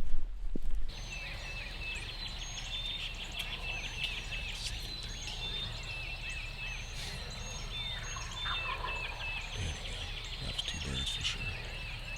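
Eastern wild turkey gobbling about eight seconds in, over a dawn chorus of songbirds chirping. In the first second a loud burst of noise cuts off abruptly.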